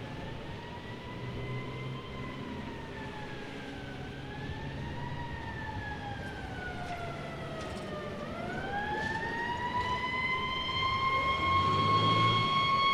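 Emergency vehicle siren wailing, its pitch sliding slowly down and up, then winding up about eight seconds in to a steady high tone as it grows louder, with a low traffic rumble underneath.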